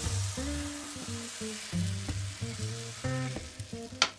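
Thin blini batter sizzling as it is poured into a hot frying pan and spreads, the hiss thinning as the pancake sets, under background music. A sharp tap near the end.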